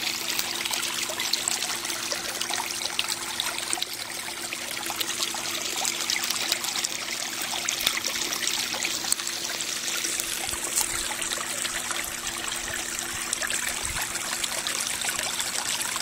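Water trickling steadily down a small pump-fed garden stream, kept flowing through sub-freezing cold.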